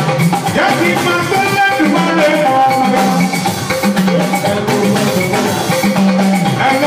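Band music with a steady drum and percussion groove under held melody notes.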